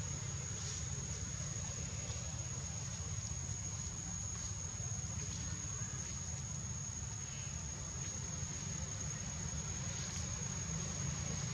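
Steady high-pitched insect drone, one unbroken held tone, over a constant low rumble.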